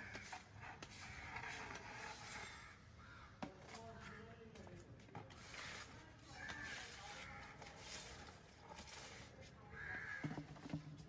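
Faint, repeated bird calls, with faint voices in the background.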